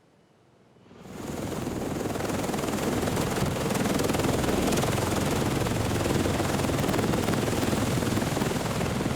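Loud, steady aircraft noise that swells in about a second in and holds.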